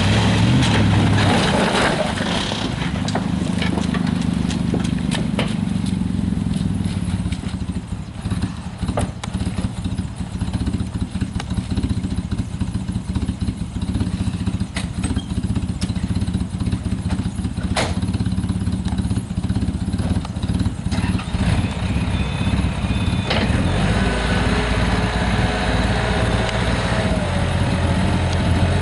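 Toyota Tercel four-cylinder engine idling unevenly, its loudness dipping irregularly, as with a misfire. A faint higher steady whine comes in near the end.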